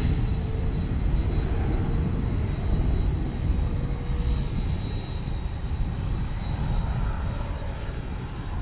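McDonnell Douglas MD-11 freighter's three jet engines running at taxi power as the jet rolls along the taxiway after landing: a deep steady rumble with a thin high whine, and a lower tone that fades about halfway through.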